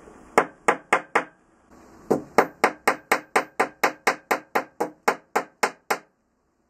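Small hammer tapping a bent die-cast windscreen surround from a Dinky Mini Moke on a little metal bench anvil to straighten it: four quick taps, a short pause, then a steady run of about sixteen sharp metallic taps at roughly four a second.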